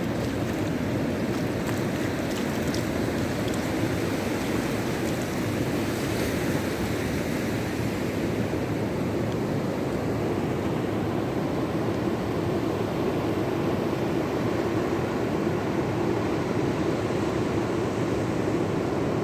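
Rough sea surf at high tide, breaking and washing in a steady, unbroken wash of noise.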